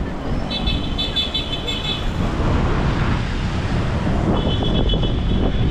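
Busy city street traffic: a steady rumble of passing cars and engines. A high-pitched tone sounds twice over it, for about a second and a half each time.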